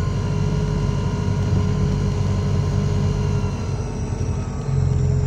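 New Routemaster diesel-electric hybrid bus running, heard from inside the cabin: a low engine rumble with steady whining tones above it. The rumble steps up louder near the end.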